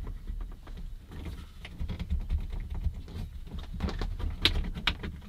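Fiat Ducato interior rear-view mirror being pressed and twisted onto its windscreen mount: irregular small clicks and creaks of a tight fit, with a couple of sharper clicks near the end.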